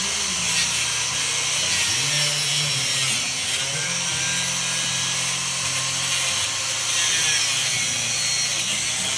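Angle grinder running steadily, cutting metal with a continuous high grinding noise and a motor hum that shifts in pitch as it bears into the work.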